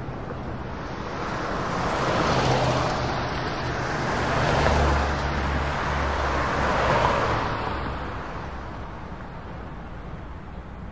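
A rushing noise that swells and fades three times, with peaks about 2.5, 5 and 7 seconds in, over a low steady hum, then dies down near the end.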